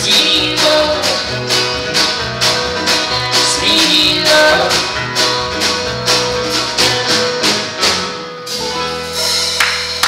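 Live band playing the end of a country-rock song: electric guitar, electric bass, banjo and drums keeping a steady beat, closing on a held final chord with a cymbal wash about eight and a half seconds in.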